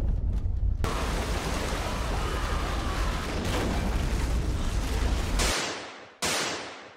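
Film soundtrack effects: a loud, deep rumble under a dense wash of hiss for about five and a half seconds, then two short hissing bursts that fade out near the end.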